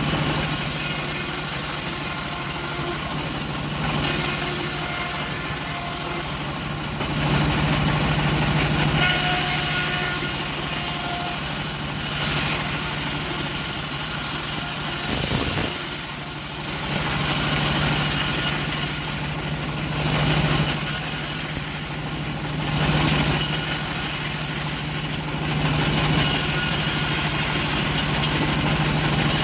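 Homemade engine-driven bandsaw sawmill running with a steady engine drone, its loudness swelling and easing a little.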